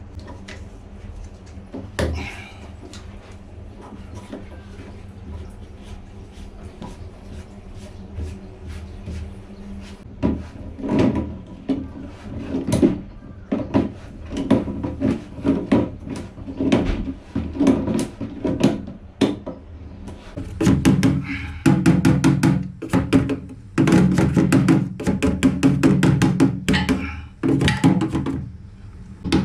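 Handling noise from work on a toilet's plastic flush-pipe fittings: a single knock about two seconds in, then from about ten seconds on a busy run of knocks, clicks and rattles from a spanner and the pipework.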